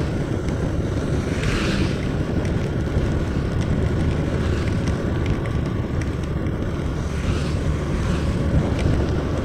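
Wind buffeting the microphone of a motorcycle riding at speed, over the steady hiss of tyres on a wet road. A car passes close alongside near the end.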